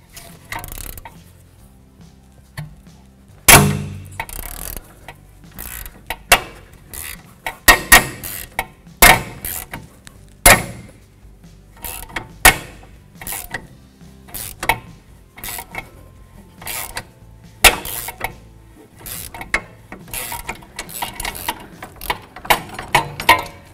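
Hand tools working a rusty sway bar link nut: a steel combination wrench and a ratchet with a hex socket clicking and clinking, in irregular sharp clicks and clanks, the loudest about three and a half seconds in. The stud spins with the nut, so it is held with a 5 mm Allen socket while the nut is turned off.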